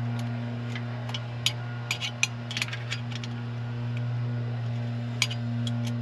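Scattered sharp metallic clinks and ticks of hand tools and hardware, a dozen or so, bunched in the first half and again near the end, over a steady low hum.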